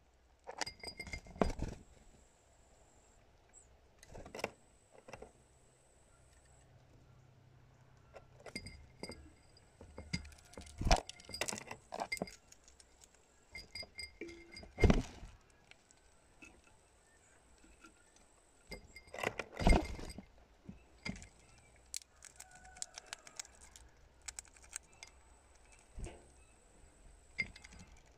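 Birds landing on and feeding from glass jars and a plastic tray: irregular glassy taps and clinks of beaks and claws on glass, with a few louder knocks.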